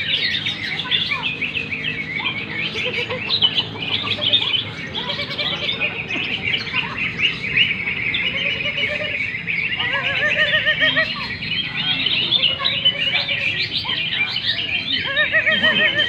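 Many caged cucak ijo (green leafbirds) singing at once in a contest, a dense, continuous chorus of rapid chirps and trills. Clusters of repeated lower looping notes come through about ten seconds in and again near the end.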